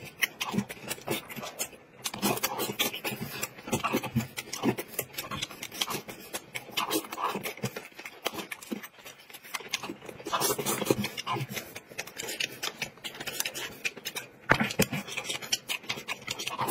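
Close-up eating sounds: a man chewing and slurping noodles, a dense, irregular run of mouth clicks and smacks, with chopsticks scraping the plate.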